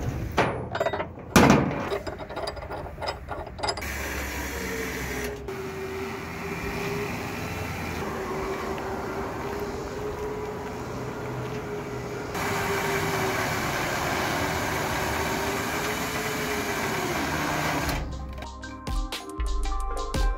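A few sharp clanks on a steel trailer deck, then an electric trailer winch motor running steadily under load with a slightly wavering whine for about twelve seconds. Music with a beat comes in near the end.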